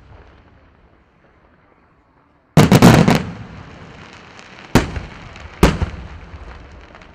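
Aerial firework shells bursting: a quick volley of loud bangs about two and a half seconds in, then two single bangs a little under a second apart, each trailing off in a rolling echo.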